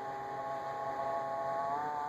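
Samsung refrigerator running with a steady, several-toned whining hum that slides up in pitch near the end, as a motor inside speeds up.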